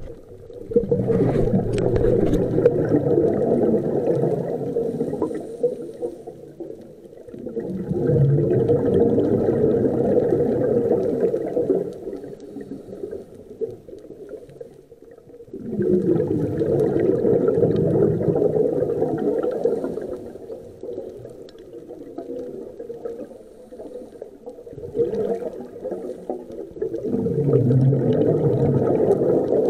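Scuba diver breathing through a regulator underwater: four long exhalations, each a 4–5 second rush of bubbles, with quieter pauses between breaths.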